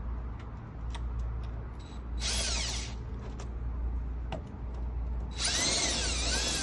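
Key-cutting machine's cutter grinding into a key blank in two short runs, one about two seconds in and a longer one from about five and a half seconds, its pitch wavering as it cuts. Small clicks come between the runs.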